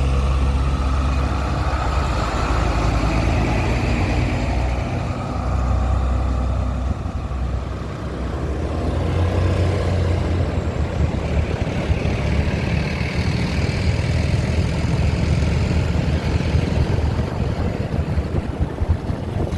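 Heavy truck's diesel engine running: a low, steady drone that turns rougher and noisier about halfway through, with wind and road noise over it.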